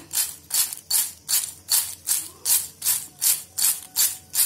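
Crisp fried elephant yam chips rattling against a ceramic bowl as it is shaken by hand, a rhythmic rustle about two to three times a second, tossing the chips to coat them with salt, chilli powder and asafoetida.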